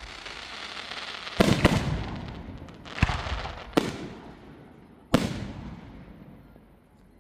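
Fireworks display: aerial shells bursting, about five sharp bangs spaced one to two seconds apart, each fading away after the burst. The loudest bursts come in the first half, and it quiets near the end.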